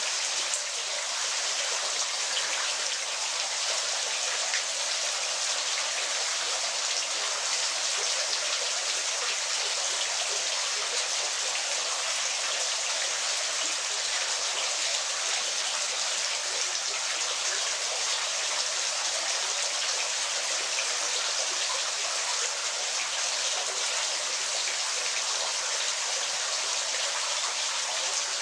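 Falling water splashing in a steady, even rush, mostly a bright hiss with little deep rumble.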